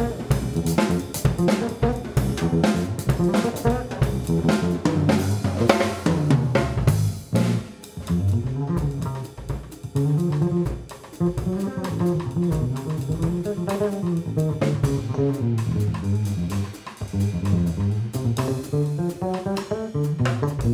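Pearl drum kit played in a busy solo, dense snare, tom and bass-drum strokes with cymbals for the first several seconds, then sparser hits. An electric bass line runs underneath and comes forward in the second half.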